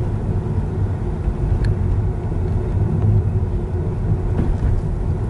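Steady low road and tyre rumble inside the cabin of a 2020 Tesla Model 3 driving along a town street. There is no engine note, since the car is electric.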